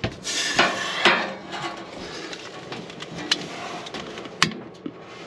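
Sharp clicks and light metallic knocks inside a propane RV oven as a long-reach lighter is brought to the burner to light it by hand, because the oven's own clicker igniter won't light it. A hiss fills the first second, and the loudest click comes near the end.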